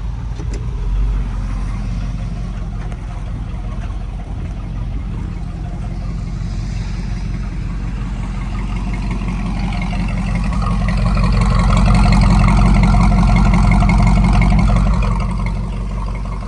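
Edelbrock-carbureted V8 engine of a 1981 Dodge Ram pickup idling steadily, then running louder for several seconds in the second half before settling back to idle.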